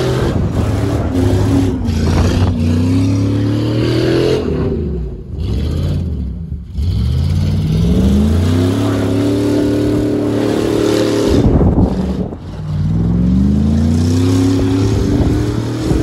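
GMC Sierra pickup's engine revving up and falling back over and over as the truck spins donuts on snow, with a short lull about five seconds in. The muffler hangs loose and drags at the back of the exhaust.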